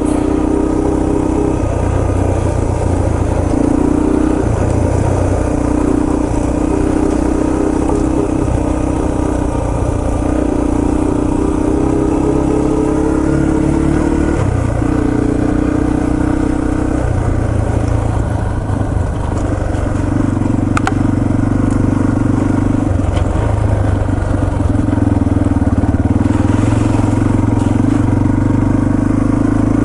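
Yamaha TT-R230 trail bike's air-cooled single-cylinder four-stroke engine running at low revs, its note rising and falling every few seconds as the throttle opens and closes on a rocky trail.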